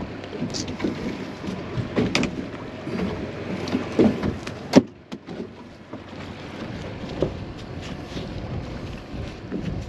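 Water lapping against a small boat's hull with wind, and scattered clicks and knocks of gear being handled on the deck, the sharpest one about five seconds in.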